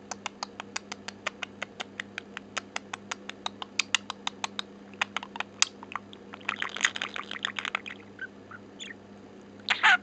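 Budgerigar making a fast, even run of sharp clicks, about six a second, for the first four and a half seconds, then a few sparser clicks, a brief burst of rapid chattering warble, scattered chirps, and a loud chirp near the end.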